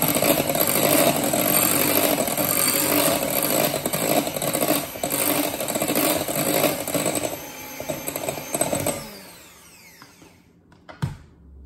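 Electric hand mixer running steadily with its beaters whipping frosting in a bowl, then switched off about nine seconds in, its motor whine falling as it spins down. A single sharp click follows shortly after.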